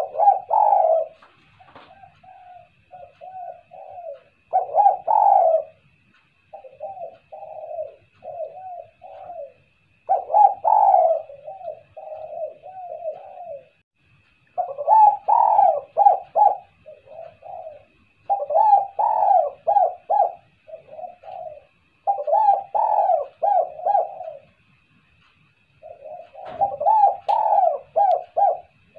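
Spotted dove (tekukur) cooing over and over: runs of short, low, throaty coo notes in phrases every few seconds, with short pauses between phrases. A faint steady high tone runs underneath.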